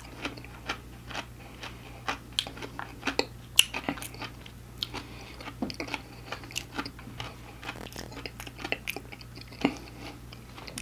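Close-miked chewing of fried food, a string of irregular wet mouth clicks and smacks.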